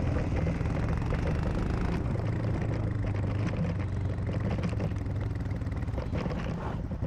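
Royal Enfield Himalayan's single-cylinder engine running steadily at low speed, heard from on the bike. It gets a little quieter near the end.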